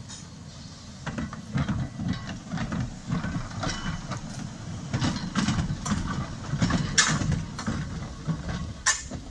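Blackpool Corporation Tramways No. 40 double-deck electric tram passing close by: a low rumble with many irregular clanks and clicks of its wheels on the track.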